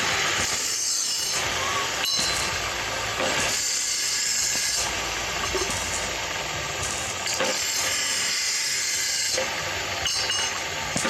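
Electric welding arc hissing steadily, its sound shifting every second or two.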